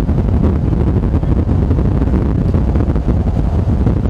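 Strong wind buffeting the microphone, a steady, loud rumbling noise heaviest at the low end.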